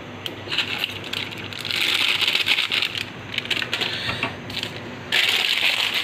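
Crinkling of plastic food packaging and small clicks and taps as things are handled on a stone counter, with stretches of rustling hiss that come and go.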